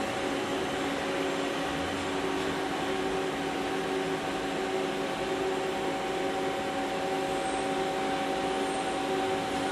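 Haas SL-30T CNC lathe running with a steady mechanical hum, several steady tones over an even whirr, unchanging in level.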